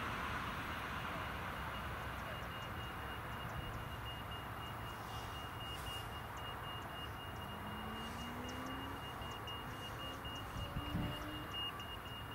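Distant Boeing 787-10 airliner taxiing onto the runway, its jet engines at taxi power: a steady rumble with a thin high whine, and a faint tone rising slowly about eight seconds in.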